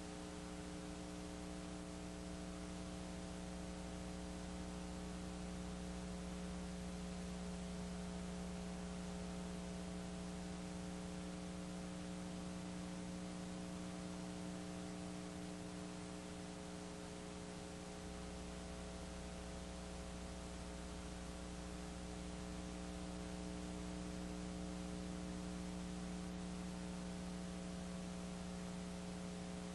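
Steady electrical mains hum, several pitches stacked with the lowest buzzing tone loudest, over a constant layer of hiss. No game or crowd sound comes through.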